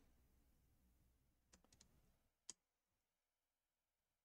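Near silence broken by a few faint clicks, a small cluster about a second and a half in and one sharper click about a second later: multimeter probe tips tapping against a laptop motherboard.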